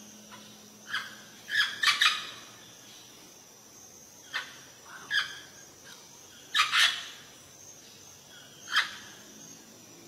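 Parrot calling: about nine short, sharp calls, some single and some in quick runs of two or three, with pauses of a second or two between bouts.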